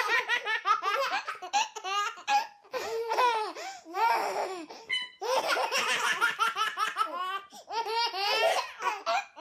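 Two babies laughing together, in repeated bouts broken by short pauses.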